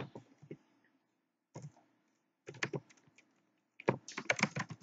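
Typing on a computer keyboard: a few scattered keystrokes, then a quick run of keys near the end.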